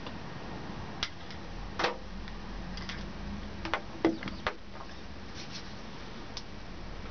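Handling noise: a few sharp clicks and knocks as a small black plastic part is turned over in the hands, the loudest a little under two seconds in and around four seconds in, over a steady low hum.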